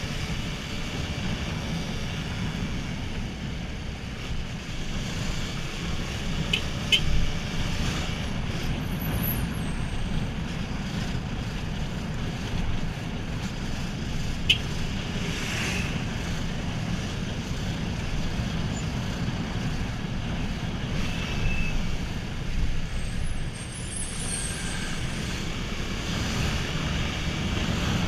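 Yamaha Fazer 250's single-cylinder engine running steadily under way, with wind rush on the microphone and surrounding road traffic. A few short clicks sound about 7 and 14 seconds in.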